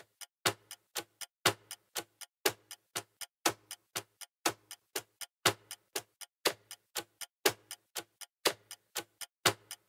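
Clock-ticking sound effect counting down a quiz timer: a loud tick once a second with fainter ticks between.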